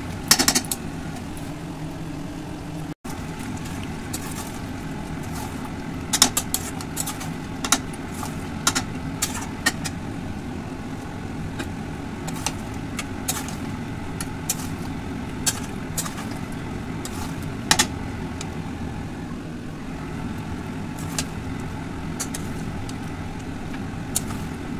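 Spatula scraping and knocking against a metal kadai as thick chicken kosha is stirred: scattered sharp clicks over a steady low rumble.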